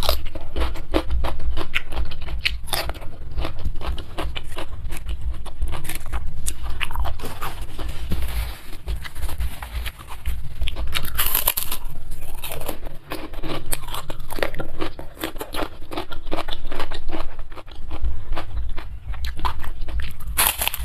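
Close-miked eating: a person biting and chewing crunchy food, a run of crisp clicks and crunches. It starts with raw cucumber, and near the end comes a sharp crunchy bite of a krupuk cracker.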